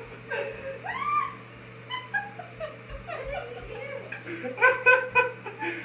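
A man and a girl laughing, with a high squealing cry about a second in and a run of quick, rhythmic laughter near the end.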